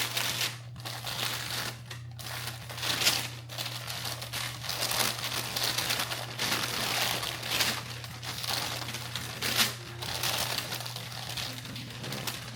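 Packaging being unwrapped by hand, with irregular crinkling and rustling as the unit is pulled out of its wrapping, over a steady low hum.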